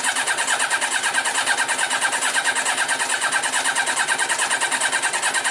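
Electric starter cranking a Yamaha Diversion's four-cylinder engine with the throttle held wide open, a fast, even chugging that never catches: the engine does not fire. The mechanic suspects water in the fuel is behind the no-start.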